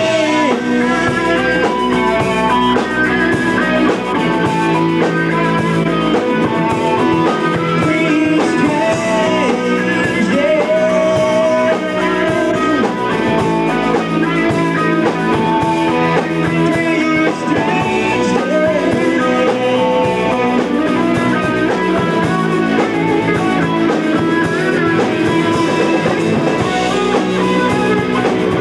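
A live rock band playing, with electric guitars over bass and drums.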